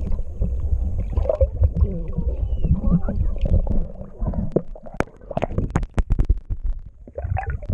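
Swimming-pool water heard from below the surface through a submerged GoPro: a muffled, rumbling underwater wash with wavering gurgles. A run of sharp clicks and knocks comes past the middle.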